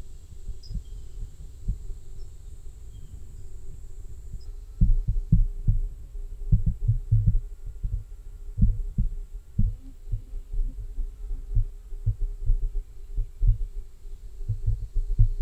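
Irregular low thumps and knocks from a damaged shotgun-mic mount jolting as the wearer walks, soft at first and much louder from about five seconds in.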